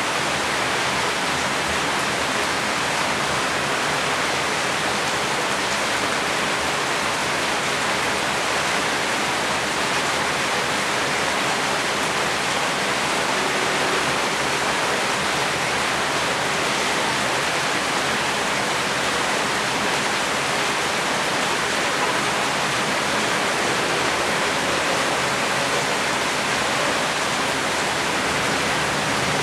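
Heavy rain falling steadily: an even, unbroken hiss with no separate drops or thunder standing out.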